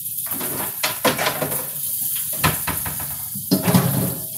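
Floured chicken breasts sizzling in oil in a skillet, under a series of knocks and clatters of pots and utensils, the loudest cluster near the end.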